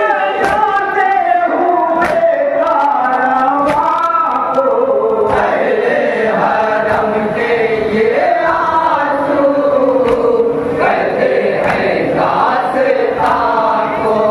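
Men chanting a noha (Shia lament), a lead reciter on a microphone and loudspeaker with the group joining in. Sharp slaps come every couple of seconds, the beat of chest-beating (matam).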